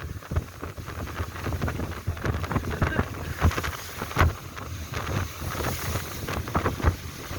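Wind buffeting the microphone aboard a sailboat, in uneven gusts with a low rumble and no steady tone.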